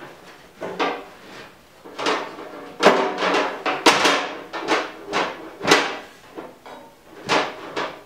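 Aluminium racing seat being shifted and fitted inside a mini sprint car's tube-frame chassis: a string of irregular knocks and clunks, the loudest about three and six seconds in.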